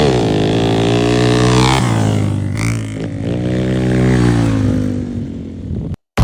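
Motorcycle engine revving, its pitch rising and falling several times, then cutting off abruptly near the end.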